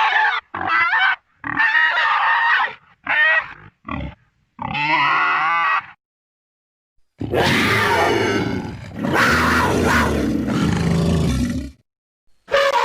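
Monster vocal sound effects built from layered animal recordings. First comes a run of about six short, pig-like grunts and squeals. After a brief silence there is a long, rough roar of about four and a half seconds, then one more short call near the end.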